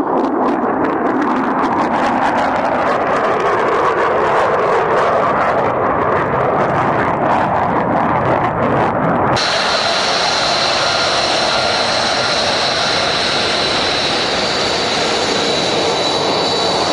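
Jet aircraft engine roar, loud and steady. About nine seconds in it changes abruptly to a brighter, hissier roar with a high whine.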